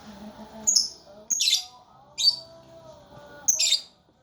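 Lovebird giving four loud, shrill chirping calls in short bursts, spaced about a second apart.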